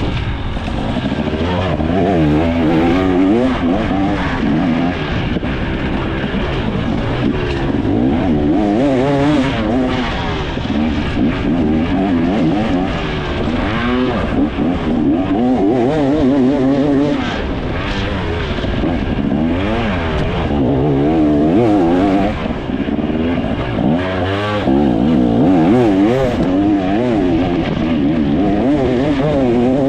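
2024 KTM 300 XC's single-cylinder two-stroke engine under way off-road, its revs rising and falling continually as the throttle is worked, the pitch swinging up and down every second or two.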